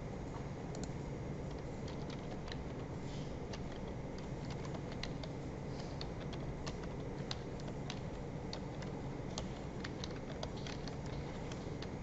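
Typing on a computer keyboard: irregular keystrokes at an uneven pace, over a steady low hum.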